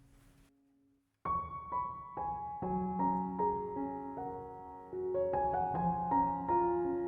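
Background music: a quiet bed fades out about half a second in, and after a short gap a gentle piano melody begins, single notes entering one after another.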